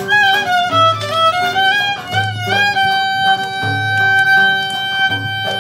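Violin playing a Turkish fasıl melody: a short phrase stepping downward, then one long held note from about three seconds in. Low plucked-string accompaniment repeats underneath.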